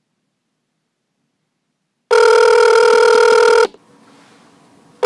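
Bell of an old black rotary-dial telephone ringing: after about two seconds of silence, one loud steady ring lasting about a second and a half, then a pause, with the next ring starting at the very end.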